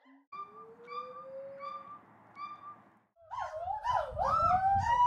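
Gibbons calling: short hoots repeated about twice a second over a faint slowly rising note, then from about three seconds in, loud whooping calls that swoop up and down in pitch one after another.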